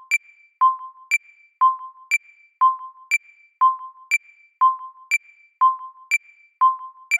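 Railroad crossing warning bell ringing steadily, two electronic bell tones alternating high and low at about two strikes a second.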